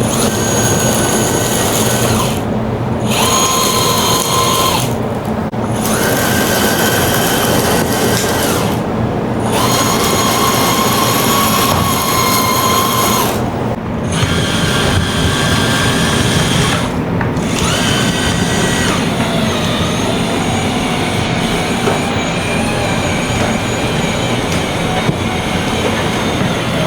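RC excavator being run through its functions: a continuous electric motor whine made of several tones. The tones shift in pitch and briefly drop out every few seconds as the controls are worked.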